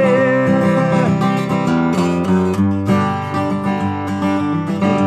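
Steel-string acoustic guitar strummed in a steady rhythm, with chord changes. A man's held sung note carries over for about the first second and then stops.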